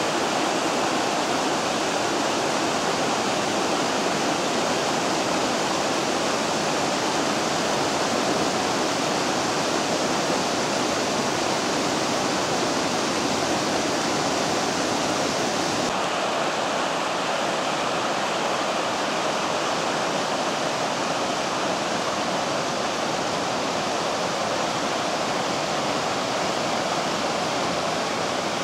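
The Vydra, a mountain river, rushing steadily in an even wash of water noise. Its high hiss eases slightly about halfway through.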